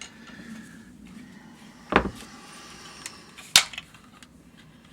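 Two sharp knocks from the plastic case of a Honeywell H450EN carbon monoxide alarm being handled as its latches are worked: a dull thump about two seconds in and a brighter, sharper click about a second and a half later.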